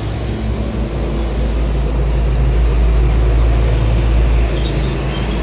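Steady low rumble with a hum, swelling slightly about three seconds in.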